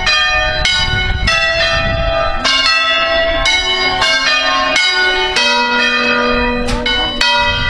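A concert of five hand-rung church bells, the largest tuned to B3, swinging full round on their wheels and striking one after another, about two strokes a second. Each stroke rings on and overlaps the next, building a continuous peal.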